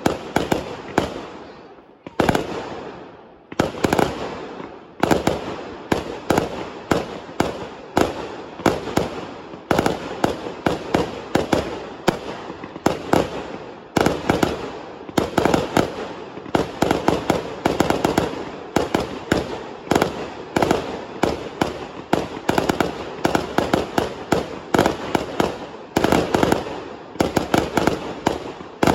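Fireworks display: a dense run of sharp bangs, several a second, each trailing off in an echo, with a brief lull about two seconds in.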